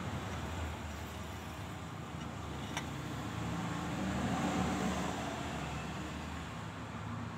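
A motor vehicle engine running steadily in the background, swelling a little about four to five seconds in, with a single sharp click about three seconds in.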